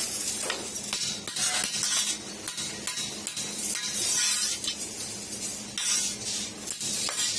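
A hand hammer striking a sheet-metal half-disc laid on a steel rail: an irregular series of sharp metallic taps and clinks, with a bright ring from the thin sheet.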